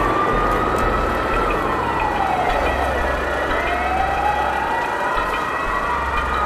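Emergency vehicle siren wailing, sweeping slowly down and back up in pitch, with more than one siren tone overlapping.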